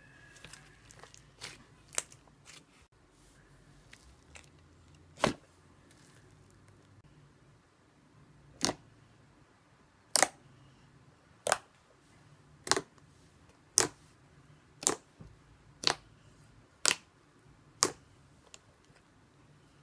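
Butter slime being pressed and poked, giving sharp sticky pops: a few spaced a few seconds apart, then a steady run of about one a second through the second half.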